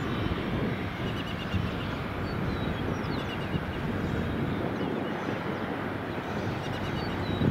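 Steady distant running of a taxiing Cessna Citation III's twin turbofan engines, heard as an even low rush, with birds chirping a few times over it.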